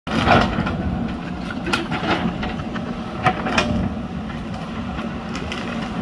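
JCB backhoe loader's diesel engine running steadily while the backhoe bucket works the soil, with several short sharp knocks from the digging.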